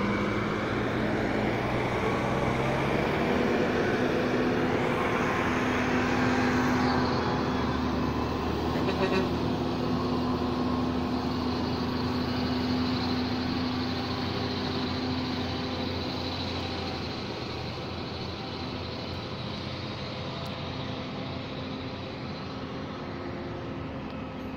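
Heavy truck's diesel engine running at low revs as the truck creeps along, a steady drone that grows gradually quieter in the second half.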